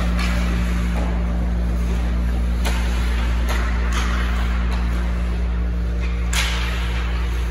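Ice hockey play: about five sharp cracks of sticks and puck, the loudest about six seconds in, over a steady low hum.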